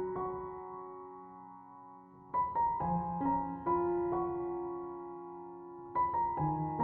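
Background piano music: soft phrases of struck notes that ring and fade, with a quieter pause about two seconds in before the next phrase.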